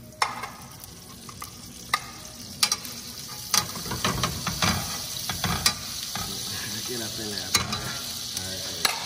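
Butter sizzling as it melts in a hot frying pan with garlic oil. The sizzle grows louder a few seconds in. A spoon clicks sharply against metal several times as the butter is scooped in.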